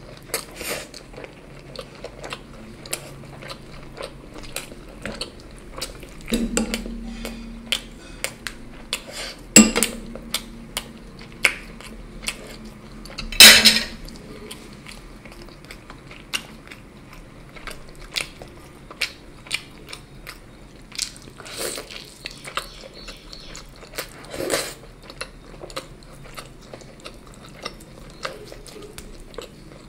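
Close-miked eating: cutlery clinking and scraping against a plate, with chewing in between. There are many small clicks, and two much louder clacks near the middle.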